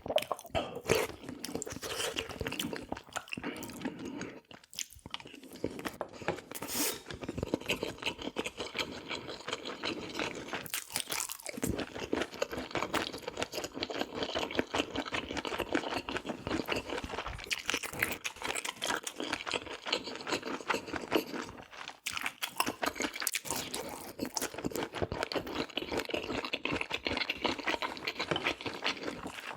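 A person eating: steady chewing with crunchy bites, dense small clicks and an occasional louder bite.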